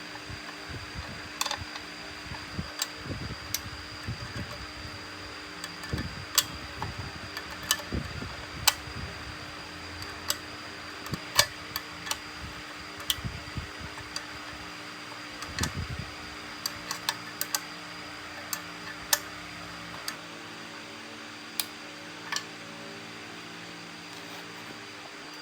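Irregular sharp clicks and light knocks, like small metal parts and tools being handled, over a steady mechanical hum, with a few duller thuds in the first half.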